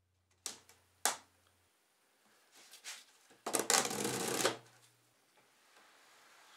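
White corrugated plastic duct hose on a portable air conditioner's outlet being pulled out and stretched by hand: two short clicks, then a crinkly, crackling rustle of the ribbed plastic lasting about a second as it extends.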